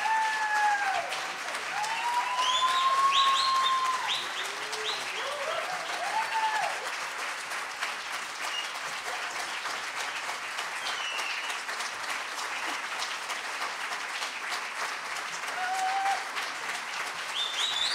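Theatre audience applauding steadily, with a few whoops and whistles rising over the clapping in the first several seconds and again near the end.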